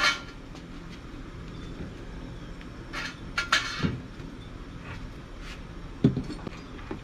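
Metal tongs clinking and scraping against a stainless steel steamer pot as crabs are lowered in: a few short clatters about three seconds in and a knock near the end.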